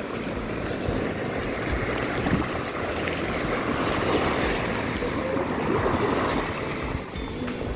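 Surf breaking and washing up a sandy beach: a steady rush that swells and eases.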